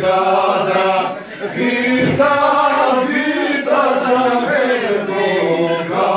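A small group of men singing together in several voices, long held notes over a low sustained drone, in the Albanian folk polyphonic style.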